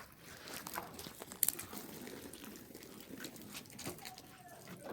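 Faint crinkling and scattered light clicks of handling, with one sharp click about a second and a half in.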